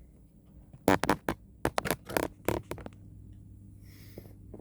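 A quick run of about ten sharp plastic clicks and knocks as a plug-in car charger and its cigarette-lighter socket adapter are handled, followed by a faint steady low hum.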